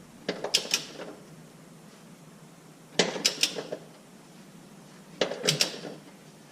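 A 1/2-inch-drive torque wrench ratcheting as bolts are tightened: three short runs of sharp metallic clicks, a couple of seconds apart.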